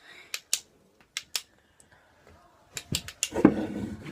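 Two pairs of sharp clicks in the first second and a half, then near the end a louder stretch of what sounds like a voice.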